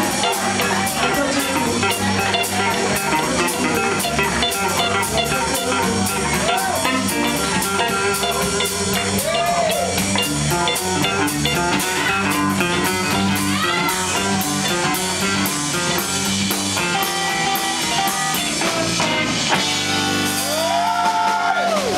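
A live blues band playing: electric guitar, bass and drum kit, with bending guitar notes and a held, sustained passage near the end.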